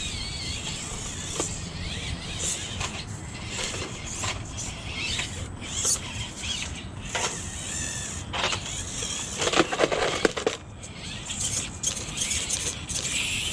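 1/24-scale RC rock crawlers grinding over rocks: small electric motors and gears whining, with tyres and plastic bodies clicking and scraping on stone. Near the end there is a louder burst of clattering as one crawler tumbles over onto its roof.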